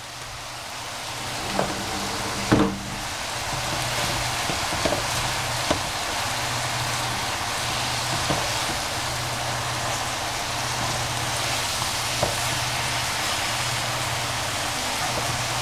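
Onion and baby bok choy sizzling in a hot pan, the frying growing louder over the first few seconds and then holding steady. Now and then a short sharp knock of a utensil against the pan.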